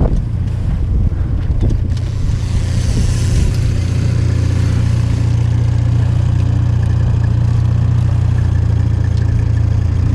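Boat engine running steadily at trolling speed, a constant low hum.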